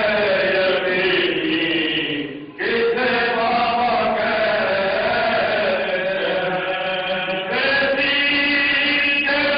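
Male voices chanting a marsiya, an unaccompanied Urdu elegy, in long drawn-out melodic lines, with a short break for breath about two and a half seconds in.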